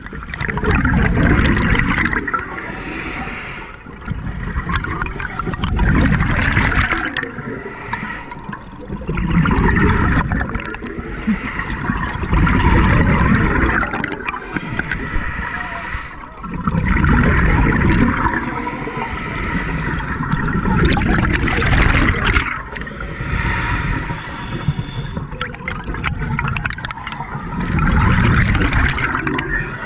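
Scuba regulator breathing underwater: a diver's bubbling, gurgling exhalations alternate with quieter inhalations, repeating in surges about every four to five seconds.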